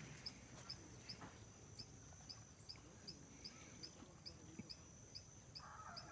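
Near silence: faint outdoor ambience with a faint, evenly repeating high tick, about two or three a second.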